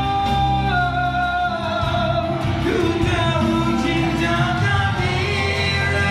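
A song sung into a microphone over backing music with a steady bass line. The voice holds long notes and slides between them.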